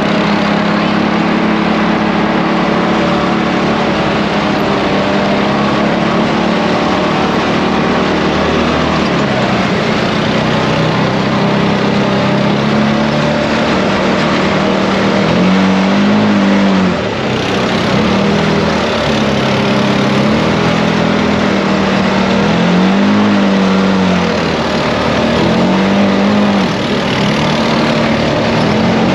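ATV engine running while riding, steady at first, then rising and falling in pitch over and over as the throttle is worked in the second half.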